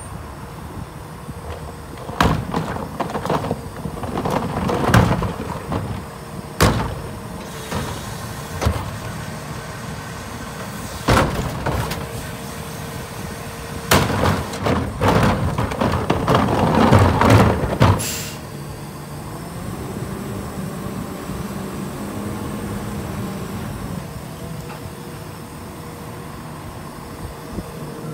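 Rear-loader garbage truck collecting trash: several sharp bangs and a run of clatter and rattling as wheeled trash carts are handled and tipped into the rear hopper and the trash falls in, loudest about 14 to 18 seconds in. After that the truck's engine runs on steadily with a held hum.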